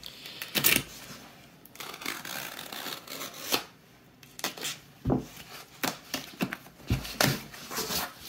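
A cardboard mailer being handled and slit open with a craft knife: the blade cutting through packing tape and card, with a series of sharp knocks and scraping rustles as the box is turned and its flap is pulled open.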